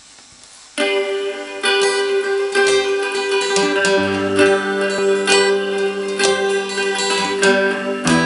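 Acoustic guitar playing picked notes over a recorded backing track with held tones; the music starts about a second in, after a faint hiss.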